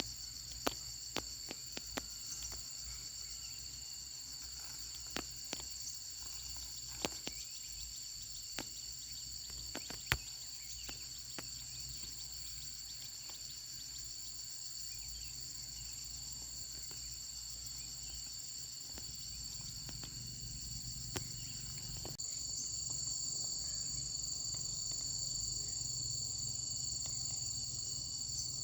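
Steady, high-pitched chorus of insects such as crickets, with scattered sharp clicks and taps in the first half. The chorus gets louder about three-quarters of the way through.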